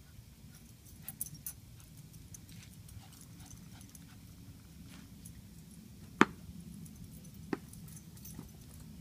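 Small white dog giving two short, sharp barks about a second and a half apart, the first one louder.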